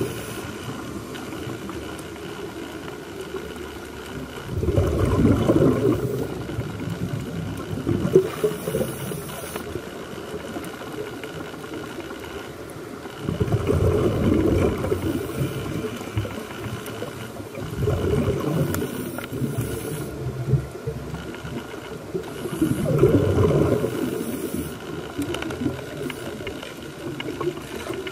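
Scuba divers breathing through their regulators underwater: low rushing rumbles of exhaled bubbles that swell every several seconds, over a steady watery hiss.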